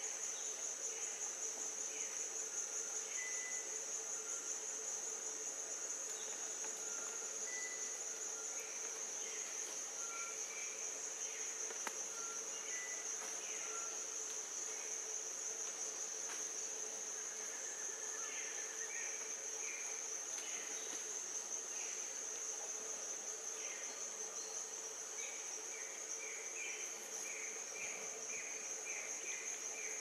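Tropical forest insects making a steady, high-pitched drone, with a fainter low steady hum beneath it. Birds give short single notes here and there, then a quick series of chirps a few seconds before the end.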